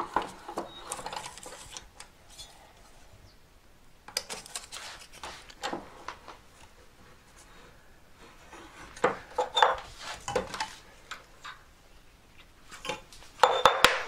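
Light metallic clinks and scrapes of a steel draw plate against sterling silver sheet as it is pressed down to fold the scored sheet, a bit at a time. The clinks come in a few short clusters with quiet gaps between them.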